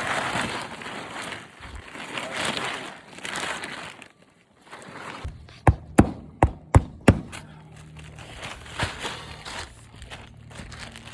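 Tarp and shingles rustling and crinkling, then a hammer striking a roofing nail five times in quick succession about halfway through.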